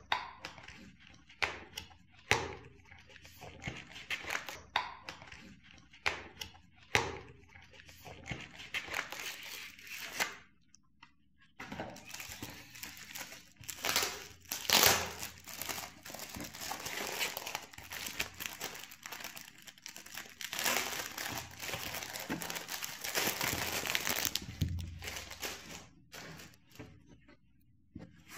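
Clear plastic shrink wrap crinkling and tearing as it is peeled off an e-reader folio case, a long continuous stretch loudest soon after it starts. Before it come scattered clicks and knocks of a cardboard box being handled and opened.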